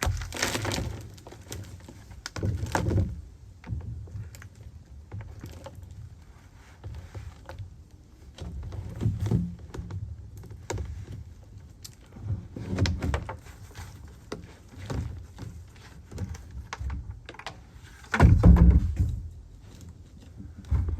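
Irregular thunks, knocks and scrapes of a potato grow bucket being handled, with soil and the dying plant shifting inside it; the loudest is a heavy thump about eighteen seconds in.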